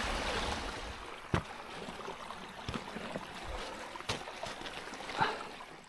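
Mountain stream rushing over rocks, fading down, with a few sharp clicks and a brief rising sound near the end.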